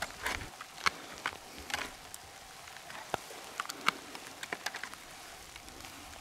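Plastic wood-pigeon shell decoys being unstacked and set out on straw stubble: irregular light clicks and rustles of the plastic shells and dry straw, about a dozen scattered clicks.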